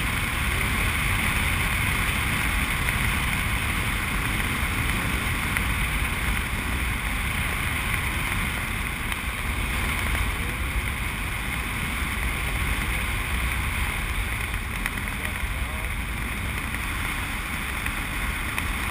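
Steady rush of wind over an action camera's microphone as a tandem parachute glides under an open canopy.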